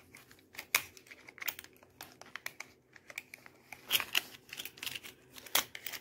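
Irregular clicks and taps of a camcorder and its small plastic parts being handled, with a few sharper snaps around four and five and a half seconds in.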